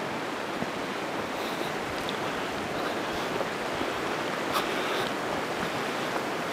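Steady, even rushing noise with a few faint clicks, one about four and a half seconds in.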